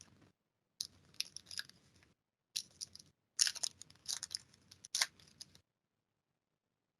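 Hockey trading cards handled by hand as they are flipped one by one through a stack: light clicks and papery rustles in three short spells, stopping about five and a half seconds in.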